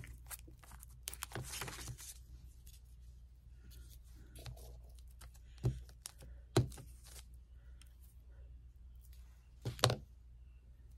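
Craft supplies being handled on a tabletop: light paper rustling, then a few small sharp knocks of objects set down, the loudest a double knock near the end.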